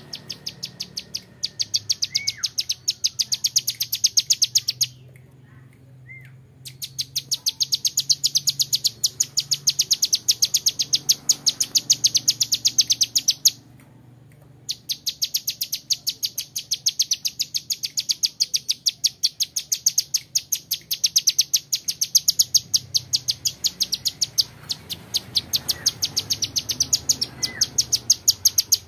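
Young ciblek gunung (a prinia) singing its rapid-fire 'ngebren' song: long runs of sharp high notes at about seven a second, broken twice by short pauses. A few short whistled notes sound between the runs.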